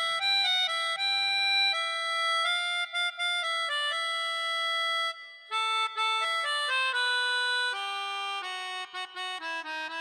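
Melodica playing a solo melody, one note at a time. The line steps gradually lower, with a brief break about halfway through.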